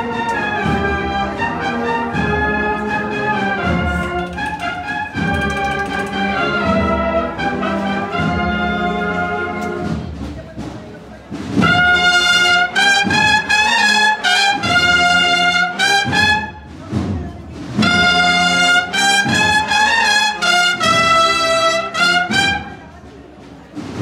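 Cornet-and-drum marching band (cornetas y tambores) playing a processional march on the move, cornets over a steady drum beat. It is quieter at first and much louder from about halfway, with a short break near two-thirds in, then stops just before the end.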